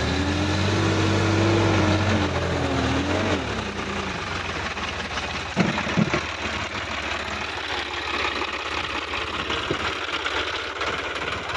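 Sonalika DI-50 RX tractor's diesel engine running, its pitch wavering for the first three seconds or so, then running steadily. A couple of sharp knocks about six seconds in.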